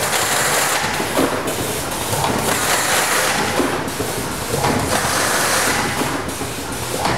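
Wexxar WF30 Gen 2 automatic case former running. Its pneumatic actions give repeated rushes of air hiss about every second to second and a half, mixed with mechanical clatter as cardboard cases are formed.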